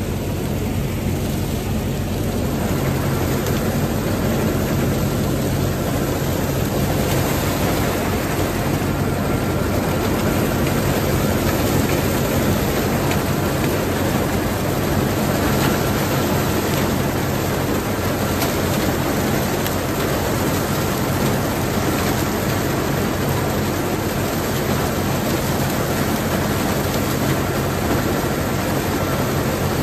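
Allis-Chalmers tractor engine running steadily under load with a pull-type corn picker working behind it, harvesting ear corn: a constant low engine hum under a dense mechanical clatter.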